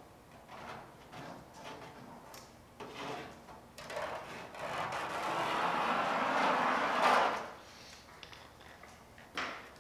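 A marker being drawn along masking tape on a car's steel quarter panel: a few faint short scuffs, then a longer rubbing stroke that builds and stops about seven seconds in.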